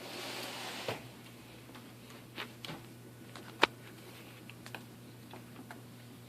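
Scattered small clicks and taps over a low steady hum, with a brief rustling hiss in the first second and one sharp click about three and a half seconds in; the vacuum's motor is not running.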